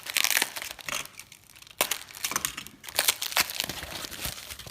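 Parcel packaging being handled and unwrapped: irregular crinkling and rustling with sharp crackles, and a short lull a little over a second in.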